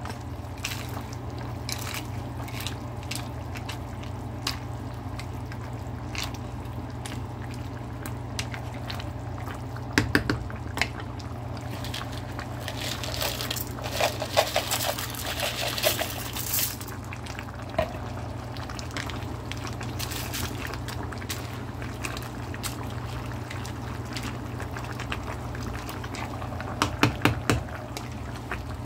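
Chicken broth simmering in a stainless steel pot over a steady low hum, with faint crackling bubbles. Dry egg noodles slide from a bowl into the liquid about halfway through, and near the end a wooden spoon knocks against the pot several times while stirring.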